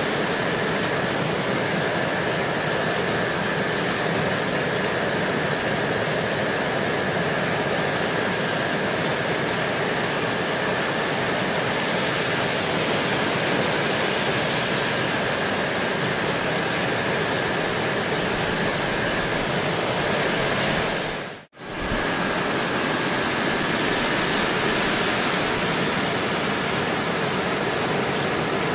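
Steady rainfall, an even, dense hiss, with a faint steady high tone beneath it. About two-thirds of the way through, the sound dips to silence for a split second and comes straight back.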